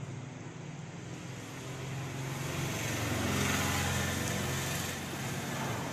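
Engine hum of a passing motor vehicle over a steady traffic rumble. It swells for a few seconds and fades again.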